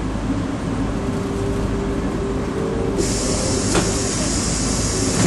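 Running rumble of a Toronto transit rail car heard from inside, with a steady whine underneath. About three seconds in a loud hiss starts suddenly, a click sounds shortly after, and the hiss cuts off sharply near the end.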